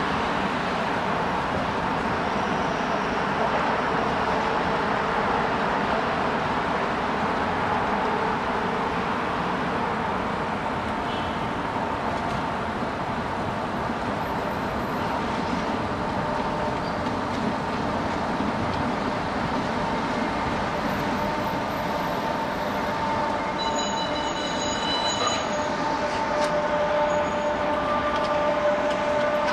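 Steady Manhattan street traffic noise heard from a moving bicycle, with a few faint high tones and squeals near the end.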